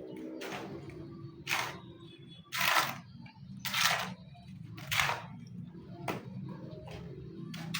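Rhythmic scraping strokes, about one a second, over a low steady hum.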